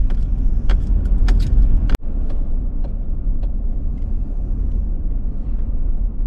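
Steady low road and engine rumble of a car driving, heard from inside the cabin. A few light clicks come in the first two seconds, and the sound drops out for an instant about two seconds in.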